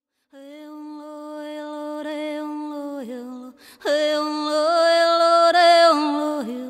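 Voices singing a long held note in unison, wordless, like a chant, dipping in pitch as the breath ends. A second, louder held note starts about four seconds in.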